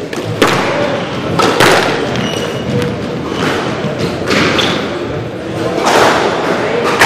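Squash ball being struck by rackets and thudding off the court walls during a rally: about six sharp, irregularly spaced impacts, each echoing in the hall.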